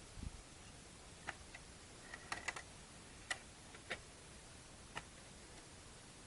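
Faint, scattered small clicks and light taps, with a quick cluster of them about two and a half seconds in, and a low thump just at the start.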